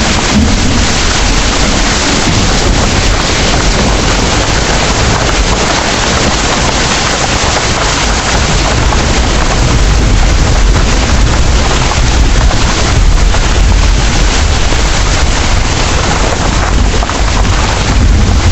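Heavy rain pouring steadily, with a deep continuous rumble underneath that swells a little past the middle.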